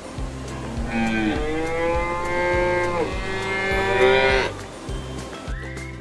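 Cow mooing: two long moos back to back, the second bending upward in pitch at its end, over background music with a steady beat.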